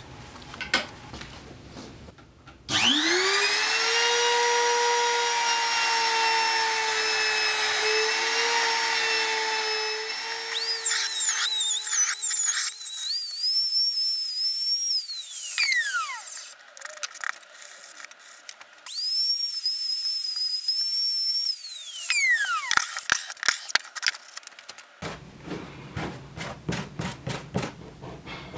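Handheld trim router spinning up to a steady high whine as its bit routes a pocket into 7 mm leather through a plywood template, then winding down. It is switched on again, runs a few seconds and winds down once more. Near the end comes a run of light clicks and scrapes.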